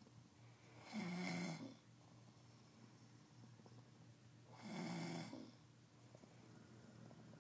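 A man snoring in his sleep: two snores about four seconds apart, each under a second long, quiet between them.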